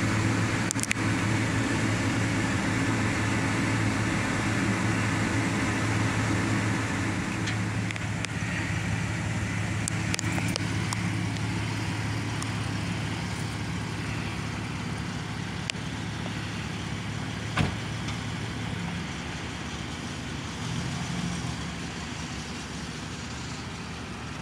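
Chevrolet Silverado 1500 pickup engine idling steadily, with a low even hum that grows gradually fainter. A single sharp knock comes about three-quarters of the way through.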